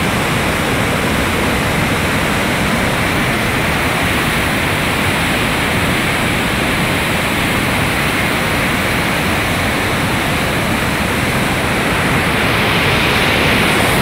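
Muddy flash-flood water rushing and churning in a loud, steady torrent, swelling slightly near the end.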